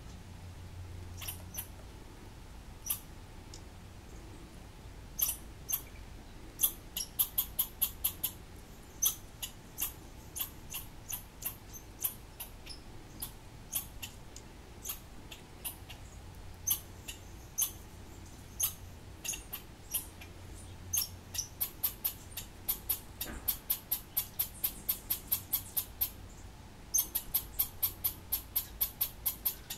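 Sharp, high-pitched chips repeated many times, scattered at first and then in quick runs of up to about eight a second. They are the alarm calls of a small animal under attack at a birdhouse.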